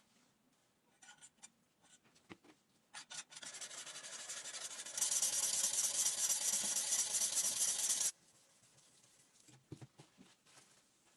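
Abrasive sanding or filing on a metal blade: a steady scraping hiss that builds up, grows louder about five seconds in and stops suddenly about three seconds later. A few light clicks and knocks come before and after it.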